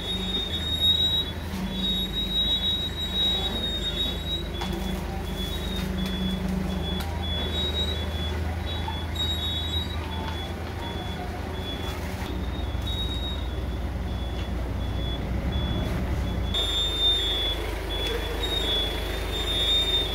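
Komatsu forklift running, a low hum from its power unit under repeated short, high warning beeps.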